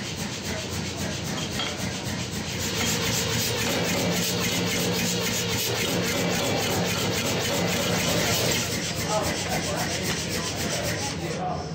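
Forging: rapid, evenly spaced hammer blows on hot steel, with a steady hum underneath that grows stronger a few seconds in. The sound changes abruptly near the end.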